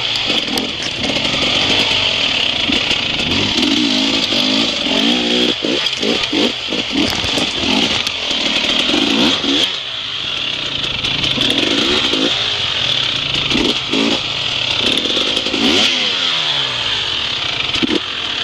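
Enduro motorcycle engine revving up and down over and over as the bike is ridden over rocky ground, with scattered sharp knocks.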